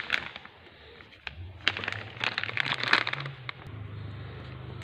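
A few sharp clicks and light rustling as small parts are handled by hand, with a steady low hum coming up about three and a half seconds in.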